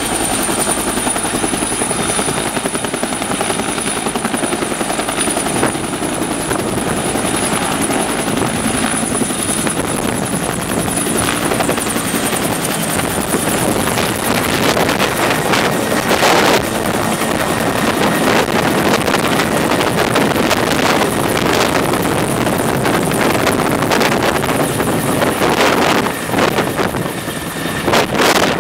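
Helicopter with a two-bladed rotor hovering low overhead while topping up water through a hanging line, then lifting away. The rotor and turbine run loud and steady, with a thin high whine that fades about halfway through. Uneven gusty buffeting follows in the later part.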